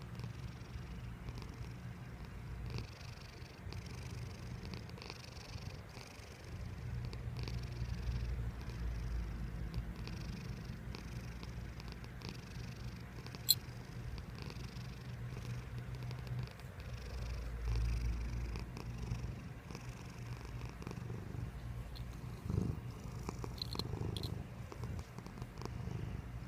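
A cat purring: a steady, low, pulsing rumble that swells louder for a few seconds twice. There is a single sharp click about halfway through.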